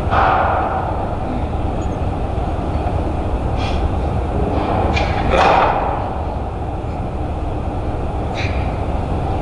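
Concert-hall room noise in a pause with no playing: a steady low rumble with a few brief rustles and knocks as the string orchestra settles, the loudest about five and a half seconds in.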